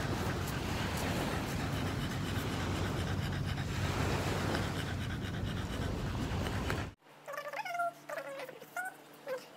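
Bulldog panting with its tongue out, over a steady rushing of wind and sea. About seven seconds in the sound cuts off abruptly to a quiet room with a few short voice-like sounds.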